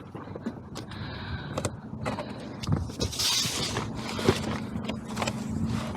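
Knocks, clatter and scraping of an HVAC unit's access panel and air filters being handled, with a brief hissing scrape about three seconds in, over a faint steady hum.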